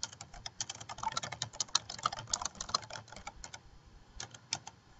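Typing on a computer keyboard: a fast run of key clicks, a short pause about three seconds in, then a few more keystrokes.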